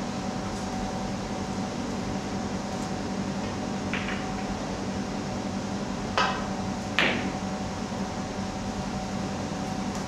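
Snooker balls clicking: two sharp clicks about a second apart, most likely the cue tip striking the cue ball and the cue ball hitting an object ball, with a fainter click shortly before. A steady hum of the room's ventilation runs underneath.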